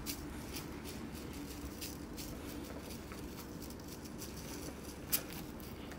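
Soft scattered taps and scuffles of cats pawing, clawing and climbing on a carpeted cat tower as they chase a feather-wand toy, with one sharper click about five seconds in, over a faint steady room hum.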